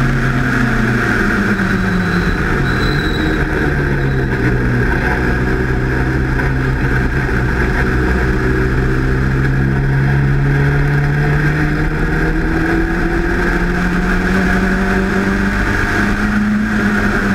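Onboard sound of a sports racing car's engine: the note falls over the first few seconds as the car slows from high revs into a corner, stays low, then rises steadily as it accelerates back up through the revs. Wind rush over the open cockpit runs under it.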